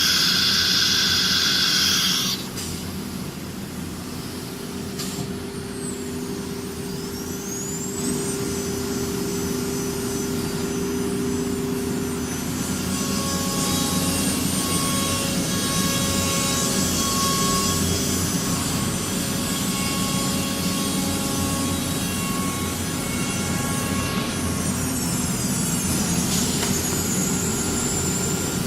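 CNC router with an automatic tool changer running, with a steady machine hum throughout. It opens with a loud hiss lasting about two seconds. About five seconds in, a rising whine climbs as the spindle speeds up, then holds at a steady high pitch and shifts pitch again near the end.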